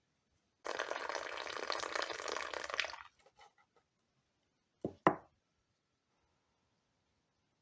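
Water pouring for about two seconds, then two short sharp knocks close together a couple of seconds later.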